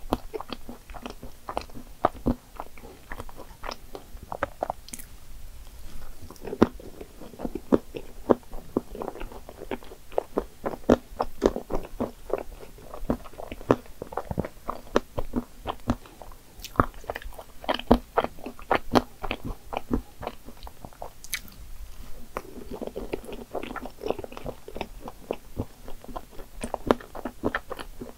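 Someone chewing cream puffs topped with whipped cream and chocolate chips: many quick, irregular mouth clicks and smacks with a little crunch.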